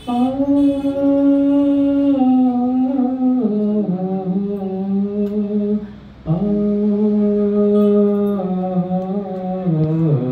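An elderly man singing a Telugu song into a microphone, holding long drawn-out notes in two phrases, with a short break for breath about six seconds in.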